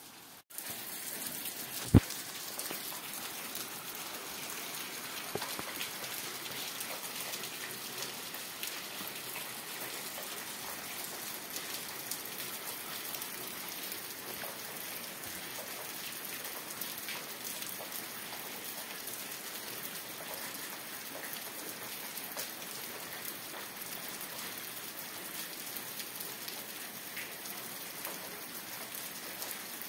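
Steady heavy rain, an even hiss of falling drops that cuts in at full strength after a brief dropout about half a second in. A single sharp click stands out about two seconds in.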